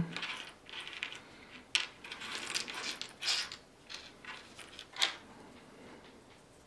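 Small resin model-kit parts clicking and rattling against each other and the table mat as they are picked through and moved by hand, with a sharper click about five seconds in.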